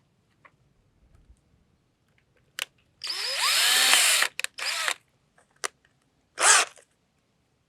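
Power drill run in short trigger bursts while drilling out a broken bolt. The longest burst, about three seconds in, spins up with a rising whine and lasts just over a second. It is followed by several brief blips and one more short burst near the end.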